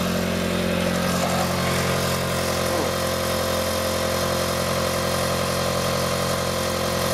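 1997 Mitsubishi Eclipse engine idling steadily, heard from under the car at the exhaust's freshly repaired flex pipe joint. The owner finds little sign of an exhaust leak there.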